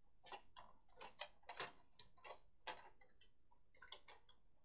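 A dozen or so light, irregular clicks and taps of hard plastic stadium pieces being handled and fitted together.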